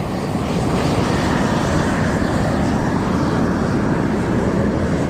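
Loud, steady machine drone with no breaks, a faint high tone joining about two seconds in.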